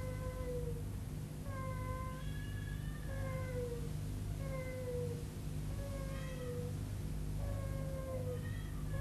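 Infant crying in a run of short, even wails, one about every second and a half, each dipping slightly in pitch, over a steady low hum.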